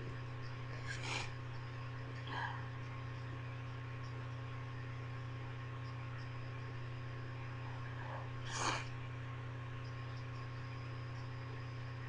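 Steady low electrical hum, with three faint, short sniffs between stifled sneezes: one about a second in, another a second or so later, and a slightly louder one about three-quarters of the way through.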